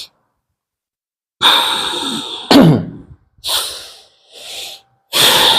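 A person breathing hard. About a second and a half in comes a long hissing exhalation that ends in a short falling groan, then two shorter breaths, and another long hissing breath near the end.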